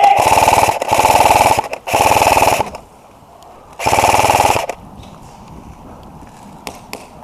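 G&P Stoner 63 (MK23) electric airsoft machine gun firing full-auto bursts with its rapid mechanical rattle, about three in quick succession and then a fourth after a pause of about a second.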